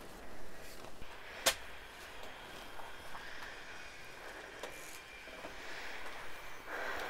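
Garden soil being worked: soft scraping and rustling of earth, with a single sharp click about a second and a half in and a few fainter knocks.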